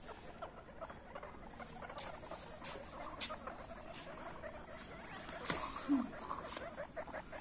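A group of guinea pigs making rapid short squeaks, several a second, with a few sharp clicks between them.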